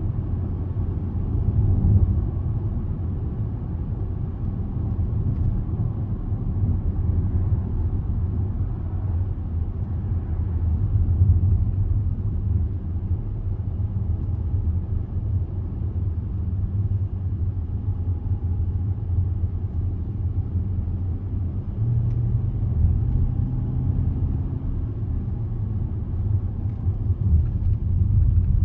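Range Rover driving at road speed: a steady low rumble of engine and tyre noise, heard from inside the car. A steadier engine hum comes in for a few seconds about two-thirds of the way through.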